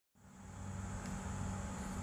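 Steady low mechanical hum with a faint high whine, fading in over the first half second. Two faint clicks, about a second in and near the end.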